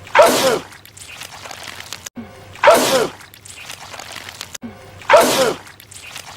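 A man sneezing, the same loud sneeze repeated three times about two and a half seconds apart, each one dying away within half a second.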